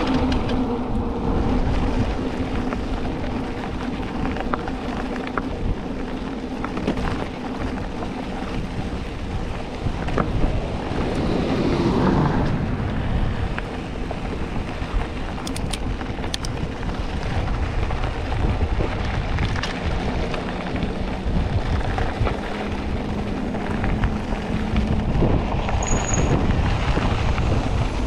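Wind rushing over the microphone and mountain-bike tyres rolling fast on a dirt road, with a few short knocks from the bike over bumps.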